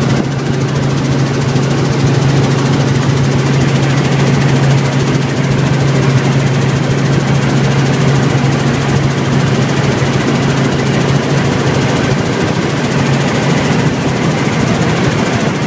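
Light helicopter in flight, heard from inside the cabin: a steady drone of engine and rotor with a strong low hum and a rushing noise, the hum easing near the end.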